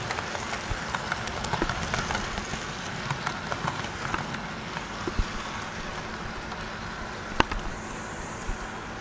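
HO scale model freight cars rolling past on the track: a steady rolling rumble with irregular clicks of the metal wheels over the rail joints, one sharp click about seven seconds in, easing off slightly near the end as the caboose passes.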